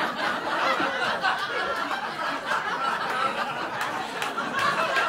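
Comedy club audience laughing together, a dense steady wash of laughter after a punchline.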